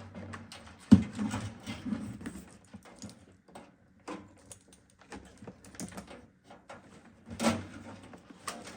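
Irregular clicks, taps and knocks of hands handling cables and parts in a PC case, with a sharp knock about a second in and another louder knock near the end.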